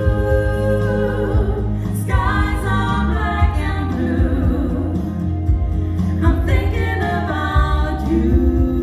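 Live music: singers performing a song with long held notes, new phrases starting about two and six and a half seconds in, over a steady bass accompaniment.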